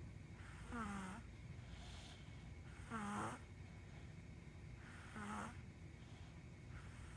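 Snoring in sleep: three snores about two seconds apart, each a short pitched, nasal-sounding note that falls in pitch as it ends, with fainter breaths between them.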